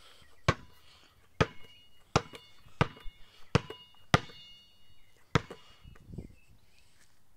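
A basketball bounced on pavement: about seven sharp bounces, roughly one every two-thirds of a second, some with a brief ringing ping, stopping a little after five seconds in.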